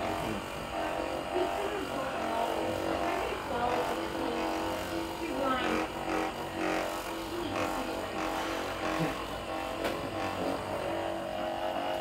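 Handheld percussion massage gun running steadily against the upper back, a constant motor drone with no change in speed.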